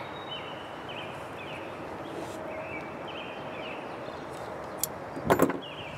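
Steady outdoor background hiss with short, high bird chirps now and then. About five seconds in there is a sharp click, followed by a brief louder sound.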